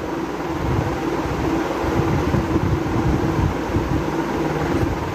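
Steady mechanical hum, like a room fan, with a steady tone and an uneven low rumble of moving air on the microphone.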